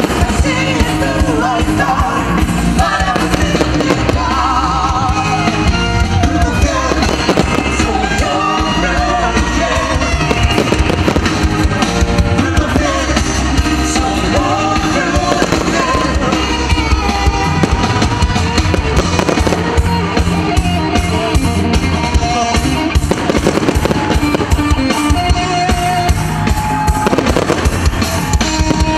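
Loud music with singing throughout, with fireworks going off over it in repeated bangs and crackles.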